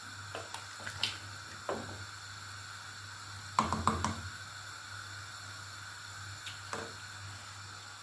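A spoon stirring wet rice in a cooking pot, sloshing with occasional scrapes and knocks against the pot. The loudest cluster of knocks comes about three and a half seconds in.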